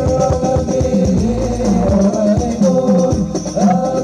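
Sholawat music with singing and percussion, played loud through a large outdoor concert sound system during a sound check.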